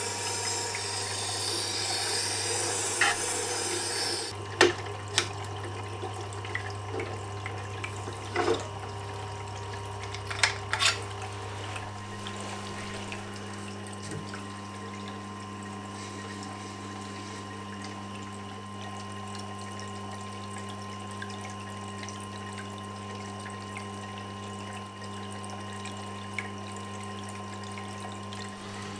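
Tormek T-8 wet grinder motor running with a steady hum. For the first four seconds or so a steel gouge grinds on the wet stone with a watery hiss. The grinding then stops, a few sharp knocks follow, and a second, higher hum joins the motor about twelve seconds in.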